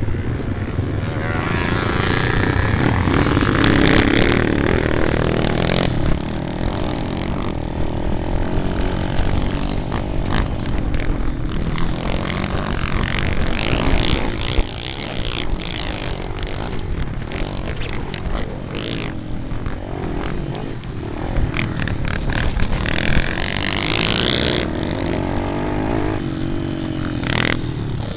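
Dirt bike engine revving up and down as it is ridden around a motocross track, with the pitch rising and falling through the gears. Heard from a camera mounted on the bike, under a heavy low rush of wind on the microphone.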